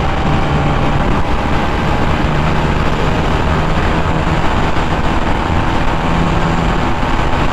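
Motorcycle engine running at a steady speed under loud wind rush on the rider's microphone.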